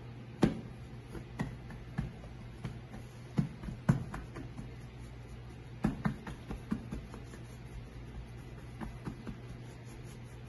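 Hands patting and pressing pizza dough out flat on a marble counter: irregular soft slaps and taps, the sharpest in the first four seconds and again about six seconds in, over a low steady hum.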